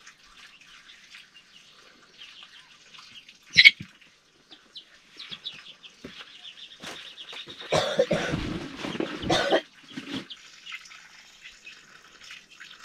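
Small birds chirping and twittering, with a single sharp knock about three and a half seconds in and a louder scuffling noise lasting about two seconds near the two-thirds mark.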